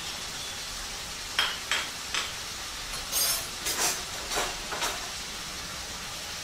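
Sprouted moth beans frying in oil in a non-stick wok, sizzling steadily. Over it come a handful of short clinks and scrapes as a spoon and spatula knock against the pan while the spices are stirred in.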